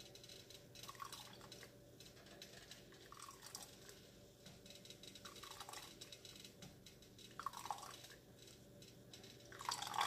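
Faint sloshing and dripping of hot coffee as a cloth coffee strainer full of steeped grounds is worked in the pot and lifted out. Near the end the sound grows louder as coffee streams and drips from the raised strainer back into the pot.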